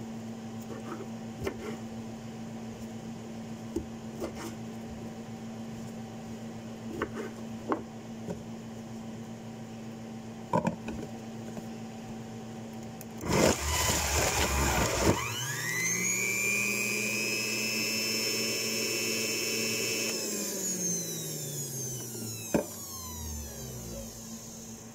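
Faint knife taps on a cutting board over a steady hum as oranges are cut. About 13 seconds in, an electric juicer starts with a loud rush as the oranges go through it. Its motor whine rises and runs steady for several seconds, then it is switched off and winds down, falling in pitch over about four seconds.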